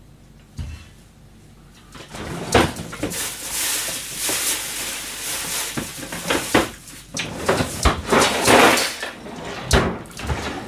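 Someone rummaging through a kitchen while searching: rustling with repeated knocks and clatter, starting about two seconds in.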